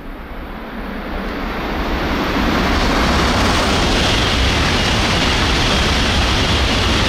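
E2 series Shinkansen passing through the station non-stop at high speed: a rush of air and wheel noise that builds over the first two seconds, then holds loud and steady, with a faint high whine over it.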